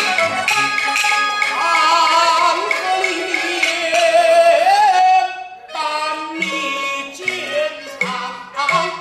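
Peking opera music: a sustained melody with vibrato over the ensemble, breaking off briefly about five seconds in, then shorter notes with sharp percussion strokes near the end.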